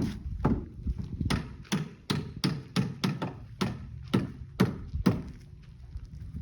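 Footsteps walking on hard ground, about two to three steps a second, stopping about a second before the end.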